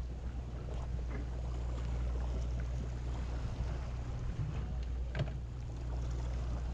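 Steady low drone of a sportfishing boat's machinery, with a sharp click a little past five seconds in.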